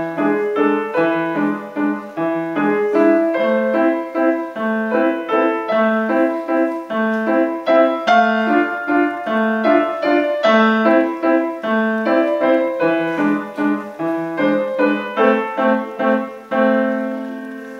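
Grand piano played solo, a lilting run of notes and chords that ends near the end on a held final chord left to ring and fade.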